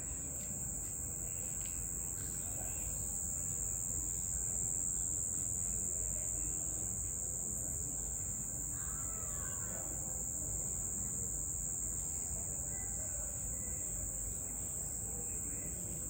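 Crickets trilling in a steady, unbroken high-pitched chorus over a low background rumble, with a brief falling call about nine seconds in.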